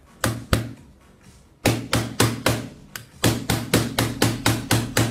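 Small lighter being struck hard against the protected screen of an iPhone 6 Plus, a test of the screen protector's impact resistance. Two knocks, a short pause, then a fast run of about four sharp knocks a second, each with a brief dull ring.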